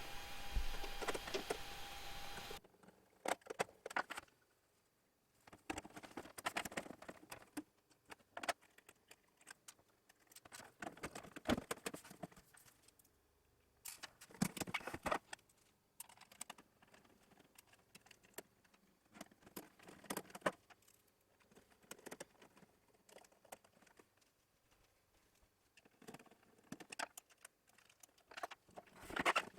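Scattered quick clicks, rattles and metallic taps from an oscilloscope being reassembled, played back sped up, coming in irregular clusters with quiet gaps. A steady hum at the start cuts off about two and a half seconds in.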